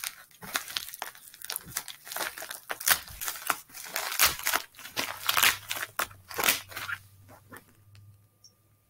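Plastic bubble mailer being torn open and handled: irregular crinkling, crackling tears and rustling of the plastic, dying away about seven and a half seconds in.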